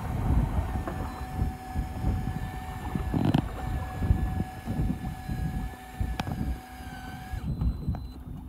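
Wind buffeting the microphone over a steady mechanical hum, with two sharp knocks about three and six seconds in; the hum cuts off near the end.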